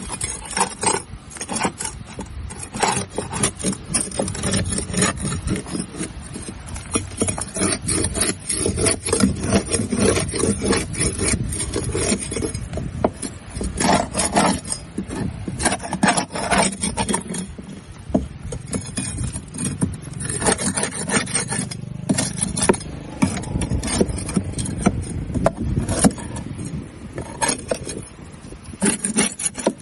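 Barnacles being scraped off a boat hull: rapid, irregular scraping strokes with sharp cracks as the shells break away.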